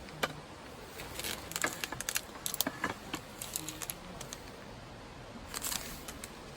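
A run of light, irregular clicks and rustles, like small objects or gear being handled, with a lull in the middle.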